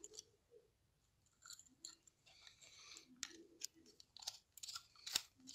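Faint, scattered clicks and scratches of a wire being fitted to the screw terminals of a thermal overload relay held in the hand.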